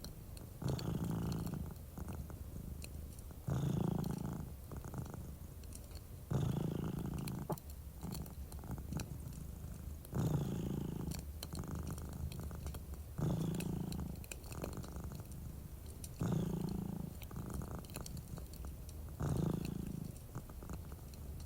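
Domestic cat purring close up, the purr swelling louder about every three seconds with each breath, over light crackling from a fireplace.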